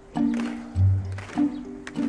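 Instrumental music: held chords alternating with a low bass note, over a few light percussive hits.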